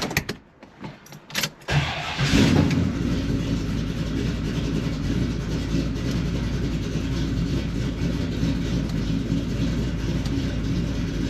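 A few light clicks, then the 1972 Chevelle SS's V8 cranks and catches about two seconds in with a short rev before settling into a steady idle. The newly fitted transmission shift cable has slipped out of adjustment.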